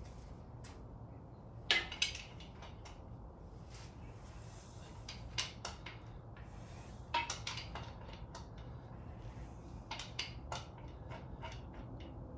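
Scattered light metallic clicks and clinks, a few at a time, loudest about two seconds in, about seven seconds in and about ten seconds in, over a faint steady low hum.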